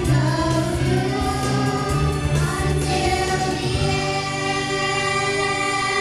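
A group of young girls singing together into microphones over instrumental accompaniment, holding long notes in the second half.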